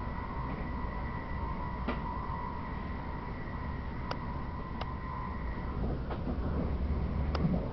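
Passenger train running at speed, heard from inside the carriage: a steady low rumble of wheels on rails with a thin high whine that fades out about two-thirds of the way through, and a few sharp clicks.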